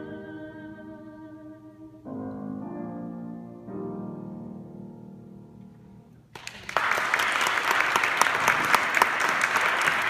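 Two female voices hold the final note of a duet with vibrato over piano, then the piano plays two closing chords that ring and fade. About six seconds in, audience applause breaks out, louder than the music.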